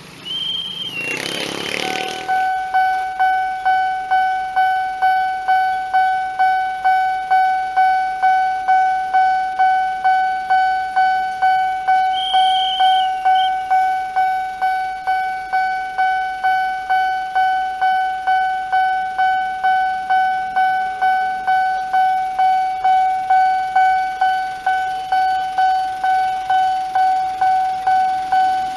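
Railway level-crossing warning bell ringing in a steady pulse of about two dings a second, signalling that the crossing is closed for an approaching train. A burst of motorcycle engine noise comes at the start, and short high whistles sound near the start and about twelve seconds in.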